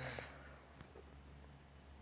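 Homemade foamy slime giving a short, faint crackle of tiny bubbles popping at the very start, which fades into quiet with a low hum.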